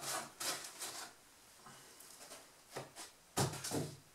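Plastic wrapping rustling and crinkling as a wrapped boat hull and foam packing are handled over a cardboard box, in irregular bursts with the loudest one near the end.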